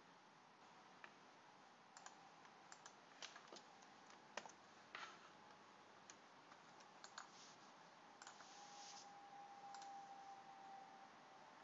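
Near silence with faint, scattered clicks of computer keyboard keys and a mouse.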